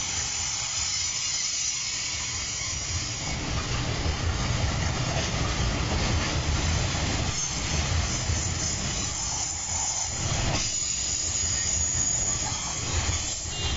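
Fully loaded container freight wagons rolling past on the track: a steady rumble of wheels on rail with a hiss over it. Now and then wheelsets knock over the rail joints.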